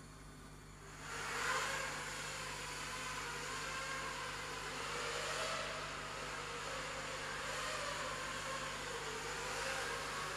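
FPV racing quadcopter on a QAV210 frame with ZMX 2300kv motors and 5-inch props, spooling up about a second in. It then flies with a buzzing whine whose pitch keeps rising and falling with the throttle.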